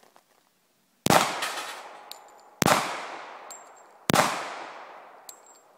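Three shots from a Colt Commander 1991 .45 ACP pistol, about a second and a half apart, each with a long fading echo.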